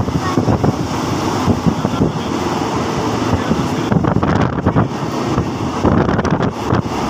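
Moving passenger train heard from inside at a window: a steady, loud running rumble with wind buffeting the microphone in uneven gusts.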